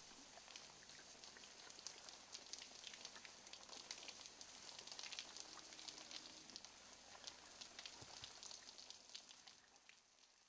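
Fine water spray pattering on a horse's wet head and neck: a faint, steady hiss full of tiny crackling droplet ticks, fading out near the end.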